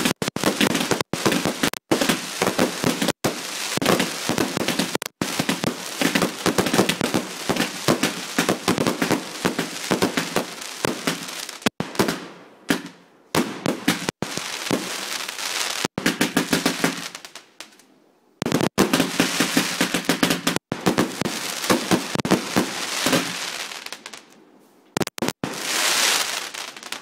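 Fireworks going off in rapid, dense crackling volleys that come in several waves, dying down briefly about twelve and eighteen seconds in before picking up again.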